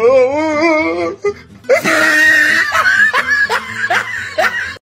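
A group of teenagers laughing and shrieking, opening with a high wavering cry and then many overlapping short rising squeals. The sound cuts off abruptly just before the end.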